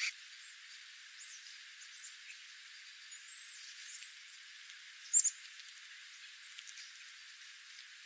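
Dark-eyed juncos foraging and giving short high chip calls, with a loud double chip about five seconds in and a brief flutter of wings at the start.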